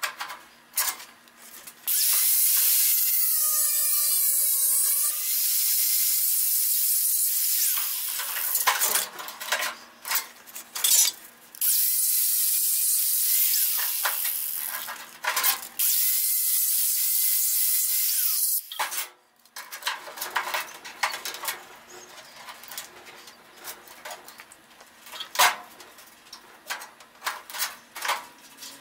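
Small Chicago Electric angle grinder grinding the edge of a sheet-metal patch panel in two long bursts, about six seconds and then about seven, with short blips between and a whine that wavers under load. After that, light clicks and taps of the metal being handled.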